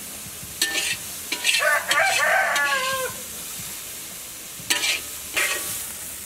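Metal spatula scraping and scooping minced pork in a hot wok, the meat sizzling, with several sharp scrapes against the pan. A rooster crows once about a second and a half in, the loudest sound.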